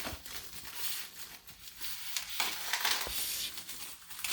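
Packaging being cut and pulled open, plastic wrap and tape crinkling and tearing in irregular rustling surges.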